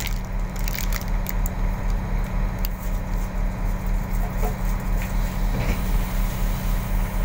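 Steady low rumble and hum of a passenger train running, heard from inside the carriage, with a few faint clicks over it.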